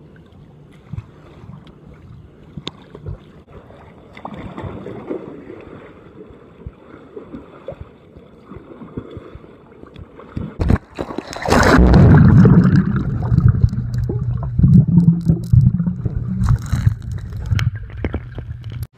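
Muffled pool water sloshing and gurgling against a phone's microphone held in or under the water. It is low and quiet at first with small clicks, then turns to a much louder, low rumbling churn of water a little past halfway.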